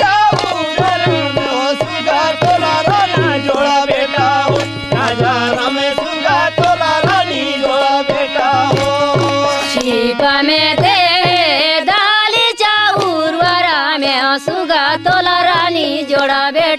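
Indian folk-song music between sung verses: a hand drum beats a steady, repeating low rhythm under a wavering melody line.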